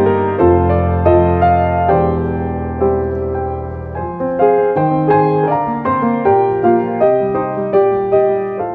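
Gentle piano music: a melody of struck notes over low held bass notes, which drop away about four seconds in.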